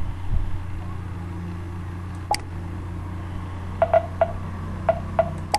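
Computer mouse clicking: one click a little before halfway, then about six quick clicks in the last two seconds, over a steady low hum.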